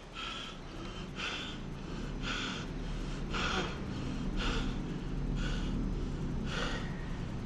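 Heavy, rhythmic breathing, about one breath a second, over a low rumble that grows louder.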